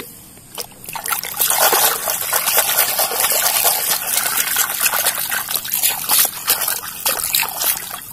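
Water splashing and sloshing as a small plastic toy loader is swished back and forth through shallow water by hand, starting about a second in and going on steadily.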